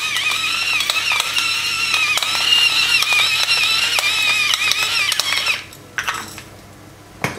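Pepper mill grinding peppercorns: a steady grinding with a constant high whine and many small cracking clicks, which stops about five and a half seconds in. A few light knocks follow.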